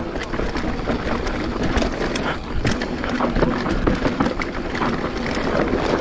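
Giant Trance 27.5 full-suspension mountain bike riding a rough, rocky dirt trail: tyres rolling over dirt and rock with many sharp knocks and rattles from the bike, over a steady low rumble of wind on the microphone.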